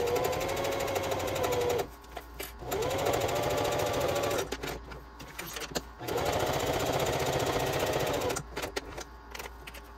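Singer electric sewing machine stitching in three short runs, its motor whine rising as each run starts, with pauses of about a second or two between runs. A few small clicks come in the pauses.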